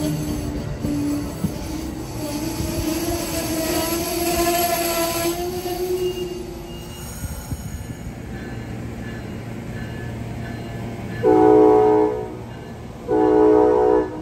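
Amtrak Amfleet passenger coaches rolling past on the rails, with a whining tone that rises slowly in pitch over the first several seconds. Near the end comes a train horn: two blasts, the second a little longer, the loudest sounds here.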